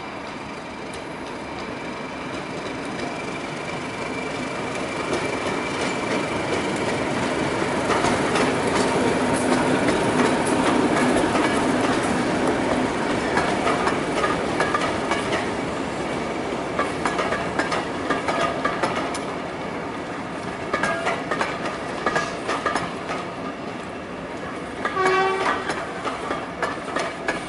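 Class 31 diesel locomotive with its English Electric V12 engine, hauling coaches past: the engine note grows louder to a peak about ten seconds in as the locomotive goes by. The passing coaches follow with quick clicks of wheels over the rail joints, which thin out towards the end.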